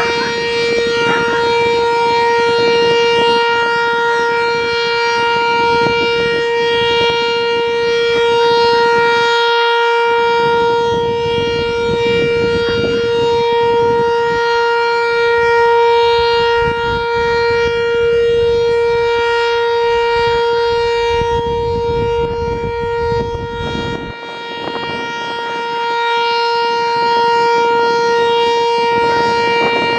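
Sentry 3V8-H outdoor warning siren sounding its alert signal: one steady, unwavering tone that holds its pitch throughout.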